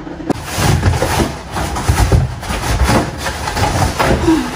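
A large cardboard shipping box being handled and its flaps pulled open: irregular rustling and scraping of cardboard with dull bumps and knocks.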